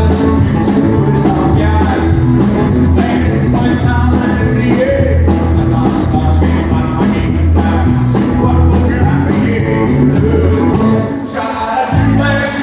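Live country band playing: a male voice singing over strummed acoustic guitar, bass and drums with a steady beat. The music briefly drops in loudness near the end.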